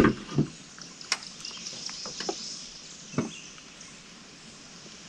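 A sharp knock right at the start, then a few fainter scattered knocks against the metal jon boat, over a steady high buzz of swamp insects.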